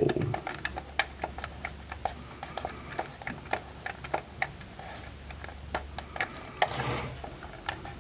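Irregular small clicks and taps, a few a second, of tweezers pressing and smoothing a vinyl decal onto the plastic buttons of a GM climate control panel. A low steady hum runs underneath.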